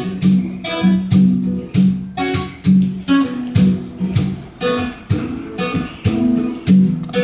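Acoustic guitar strummed in a steady rhythm, a strong strum about once a second with lighter strokes between.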